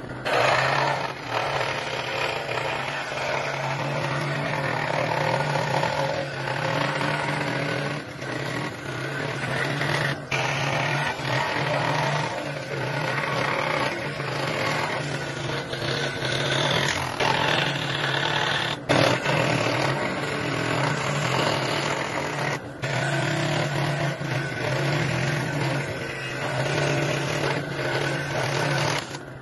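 Electric woodworking power tool running steadily with a constant hum, broken by a few abrupt cuts.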